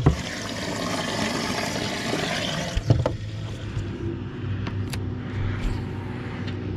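A knock, then a rushing noise for about three seconds that ends in another sharp knock. After that comes a steady low motor hum on the fishing boat, with a few light ticks.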